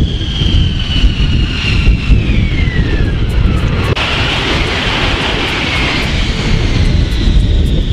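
Lockheed F-35B's F135 jet engine and lift fan running in vertical-lift mode: a loud jet rumble with a high whine that falls in pitch. The sound changes abruptly about halfway through, becoming a denser roar.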